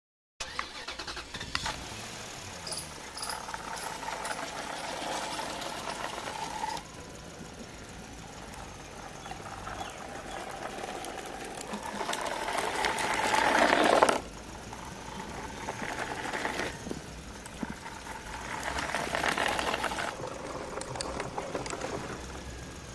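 Small motor of a homemade toy tractor running as it drives along, its wheels rolling over rough concrete. The noise swells louder and drops abruptly about fourteen seconds in, then swells again briefly near the end.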